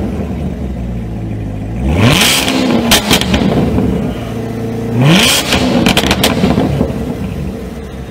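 2019 Corvette ZR1's supercharged 6.2-litre LT5 V8 idling, then revved hard twice, about two and five seconds in, each rev rising sharply and dropping back to idle. Exhaust pops and crackles follow each rev as it drops.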